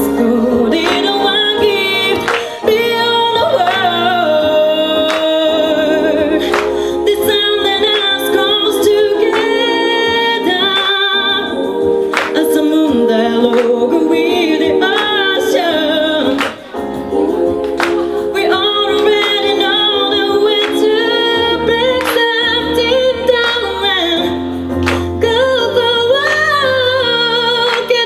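A woman singing live into a handheld microphone, her voice gliding and holding long notes over sustained accompaniment chords.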